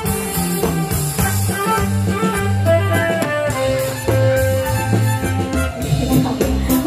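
Live band playing an instrumental passage: guitar and keyboard lines over drum kit and bass, with no singing.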